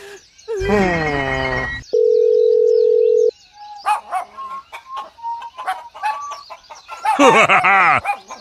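Sound effects: a tone that slides down in pitch, then a steady beep for about a second and a half, followed by scattered short chirps and a wavering tone near the end.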